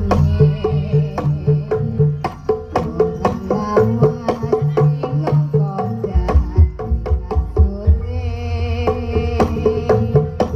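Live jaranan (kuda lumping) music from a gamelan-style ensemble: fast, driving hand-drum patterns over sustained gong and metallophone tones.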